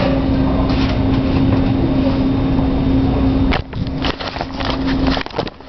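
Steady background drone with a constant low hum. From about three and a half seconds in it gives way to irregular rustling, rubbing and knocks as the camcorder is handled and its lens covered.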